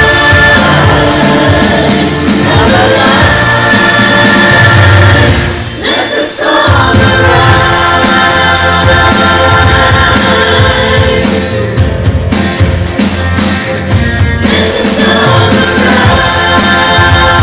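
Live contemporary worship song: a group of men and women singing together into microphones, backed by a band.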